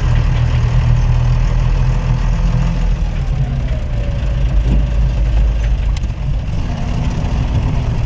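Kato 20-ton truck crane's diesel engine running steadily as the crane drives, a low rumble heard from inside the cab.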